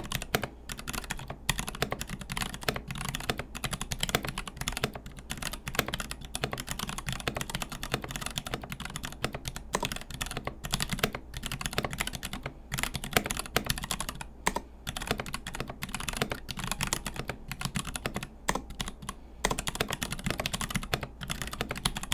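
Continuous fast typing on a Melody96 mechanical keyboard with Gateron Brown tactile switches (60 g springs) in a brass plate, an aluminium-top and acrylic-bottom case, and thick PBT Cherry-profile keycaps. The keyboard sits on a folded towel on a bare table. The keystrokes come as a dense, uneven stream of clacks with short pauses.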